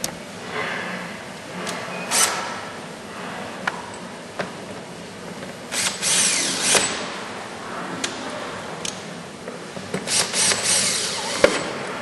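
Cordless drill-driver driving screws into a car door's inner frame in two short runs, about six seconds in and again near ten seconds, its pitch gliding up and down as it speeds up and slows. Sharp clicks and knocks of parts being handled fall in between.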